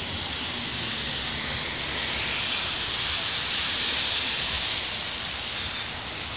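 Rainy-day street noise: a steady hiss of rain and traffic on wet roads, swelling from about two to five seconds in.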